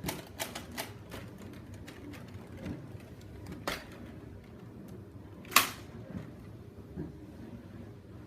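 Hard plastic parts of a toy Nerf blaster clicking and snapping as they are handled: a quick run of clicks at the start, a few scattered ticks, and one sharper snap about five and a half seconds in.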